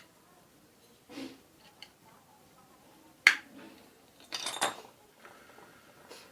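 Hard metal clinks from tools and small metal parts being handled. There is a soft knock about a second in, a sharp clink about three seconds in that is the loudest sound, and a short rattle a second later.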